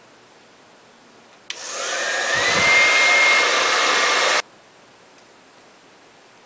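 Hand-held hair dryer switched on about a second and a half in, its motor whine rising as it spins up and then holding steady as it blows for about three seconds, before it cuts off suddenly. It is drying styling-glue spray to set a spike on a synthetic wig.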